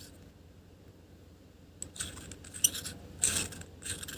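Small hard plastic clicks and scrapes as the battery cover of the Boya BY-M1 lavalier mic's inline battery housing is pried open, starting about two seconds in, with the loudest scrape about three seconds in.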